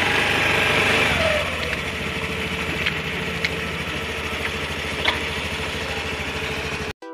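Honda Activa 6G scooter's single-cylinder four-stroke engine revved up in the first second or so, then running steadily at lower revs, with a few sharp clicks.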